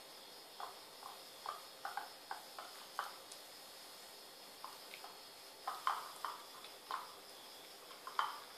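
Two kittens eating wet cat food from a small bowl: short, irregular wet chewing and smacking sounds, thickest about two thirds of the way through.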